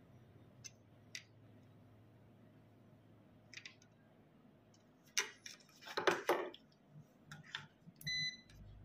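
Soft clicks and scrapes of multimeter probe tips and hands on the ECM circuit board, loudest around six seconds in. About eight seconds in comes a short, steady multimeter continuity beep, the sign that the probes are across a closed, low-resistance path.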